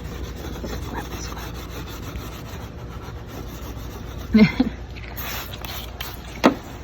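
Brush scrubbing a soapy car wheel rim, a steady rubbing, with a short louder sound about four seconds in and a sharp knock near the end.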